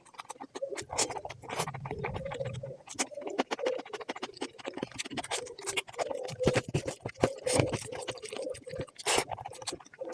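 Close-miked eating sounds: a steady stream of wet chewing clicks, crunches and mouth smacks.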